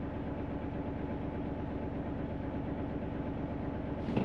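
Hino heavy truck's diesel engine running at low revs, a steady droning hum heard from inside the cab. A short click comes near the end.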